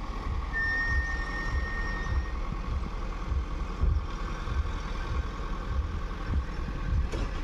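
Engines of slow-moving trucks, a tractor and SUVs running in a queue of traffic on a dirt road. A thin high steady tone sounds from about half a second in until about two seconds in.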